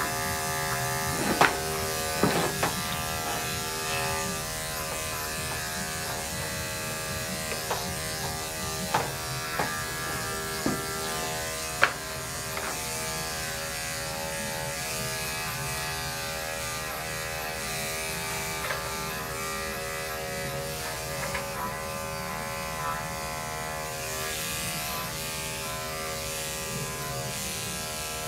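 Corded electric dog-grooming clippers running steadily with a constant hum as they clip a small dog's coat. A handful of short sharp clicks or taps stand out over the hum during the first twelve seconds.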